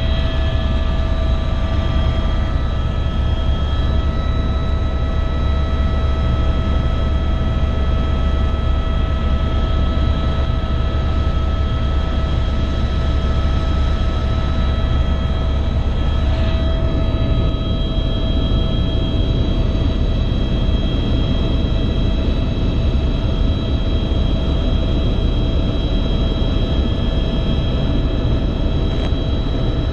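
Helicopter cabin noise in steady flight: a deep, even rotor and engine rumble with several constant whining tones above it.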